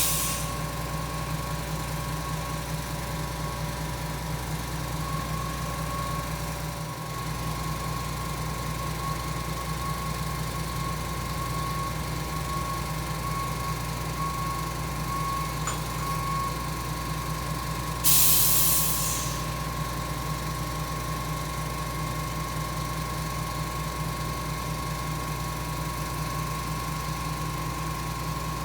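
Putzmeister 47-metre truck-mounted concrete boom pump running: a steady engine drone with a constant high tone over it, and a loud burst of hiss lasting about a second, two-thirds of the way through.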